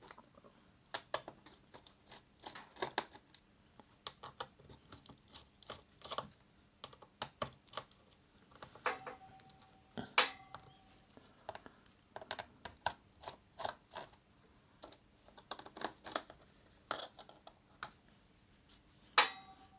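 Small screwdriver loosening a laptop's back-panel screws: irregular light clicks and taps of the metal bit in the screw heads, with a brief squeak around the middle.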